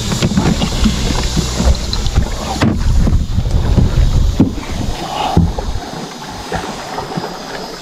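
Wind buffeting the microphone and water slapping against a small fishing boat, with scattered knocks; the low rumble eases about six seconds in.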